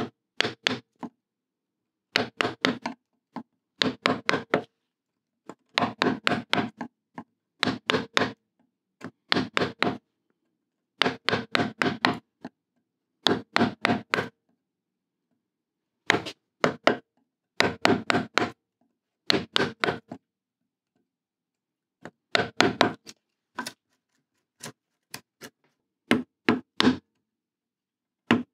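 Wooden-handled wood chisel being struck to chop out a slot in an old, rough wooden bench top. Quick blows come in bursts of four to six, with a short pause between bursts, about a dozen bursts in all.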